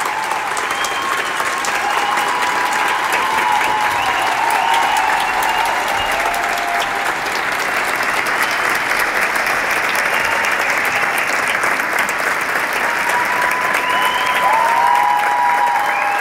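A large concert audience applauding steadily at the curtain call, with voices calling out over the clapping near the start and again near the end.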